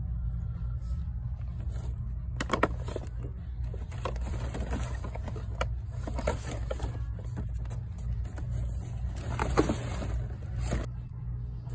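Steady low rumble, with a few crackles and knocks of plastic blister packs being handled, the loudest a little before the end.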